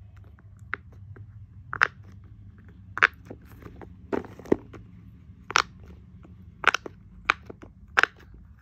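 Silicone pop-it fidget toy being pressed bubble by bubble: about nine sharp pops, roughly one a second.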